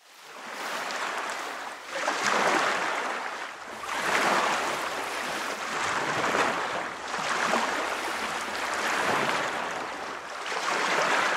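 Ocean waves washing in: a steady rush of water that fades in at the start, then swells and eases every two seconds or so.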